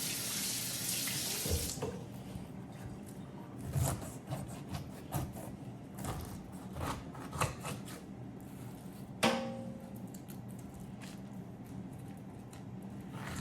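Kitchen tap running into a sink, shut off about two seconds in. Scattered light knocks and taps follow, with one sharper knock about halfway through.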